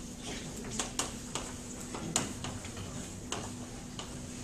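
Chalk tapping and scraping against a blackboard as words are written: a string of short, sharp clicks at uneven spacing, about two a second, over a faint steady hum.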